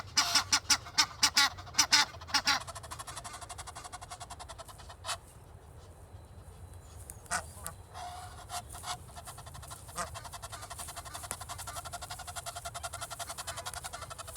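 Egyptian geese calling loudly: a fast run of about ten honks in the first two and a half seconds, then a few single calls spaced out over the next several seconds.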